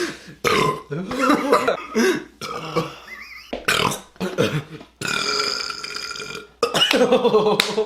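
Men burping after drinking soda: a series of separate burps, the longest a drawn-out one of about a second and a half, a little past the middle.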